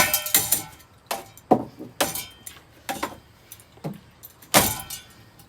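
Repeated sharp clattering and clinking impacts of hard debris, pieces of a smashed DVD player, being struck by spinning ceiling fan blades and landing. The loudest hits come right at the start and about four and a half seconds in.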